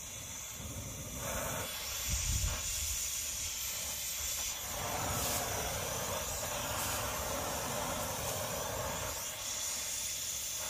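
Oxy-fuel cutting torch burning with a steady hissing rush, its flame played on a rusty rear brake drum to heat it. The hiss grows louder about halfway through.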